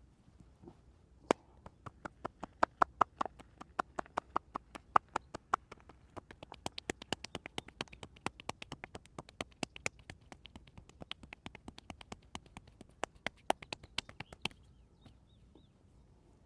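Hands tapping and slapping on the body in a massage, a fast even rhythm of about five strikes a second that starts about a second in and stops shortly before the end.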